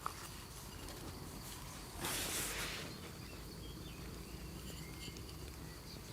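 Quiet outdoor ambience with a few faint bird chirps and a brief rustling swell of noise about two seconds in.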